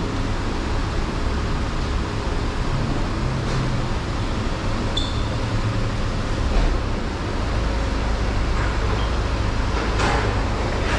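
Steady rumble of idling vehicles in an inspection hall. The low part of the rumble grows heavier a little past halfway.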